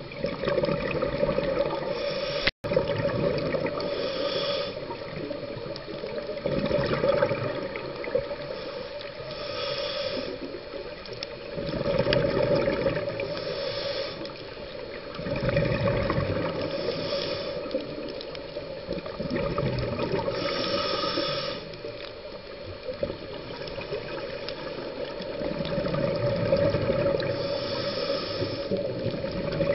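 Scuba diver breathing through a regulator underwater: a hiss of air and a rush of exhaled bubbles swelling and fading every few seconds.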